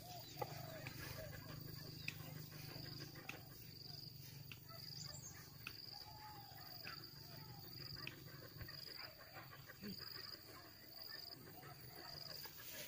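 Faint insect chirring: a thin, high buzz repeating in short pulses, over quiet rural outdoor ambience.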